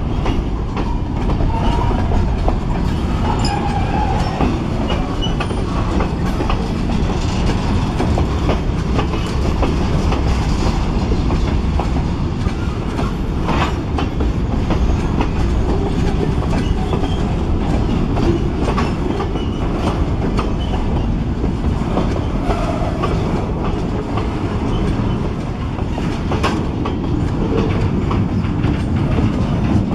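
Freight cars rolling past close by: a steady rumble of steel wheels on rail, with clickety-clack and sharp clicks now and then as the wheels cross the rail joints.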